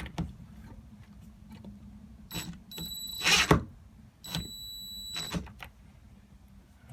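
Power drill driving a mounting screw into wood in two short runs of about a second each, its motor giving a steady high whine, with a louder burst as the screw bites in the first run. Small handling clicks and knocks come between the runs.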